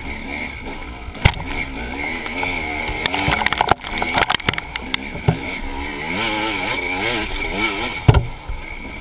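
KTM enduro dirt bike's engine revving up and down repeatedly as it is ridden along a rough woodland trail, with several sharp knocks and clatters from the bike over the ground.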